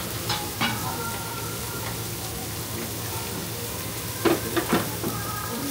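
Food sizzling steadily on a hot teppan griddle, where batter pancakes and fried noodles are cooking. There are a few brief knocks just after the start and a short cluster of them about four seconds in.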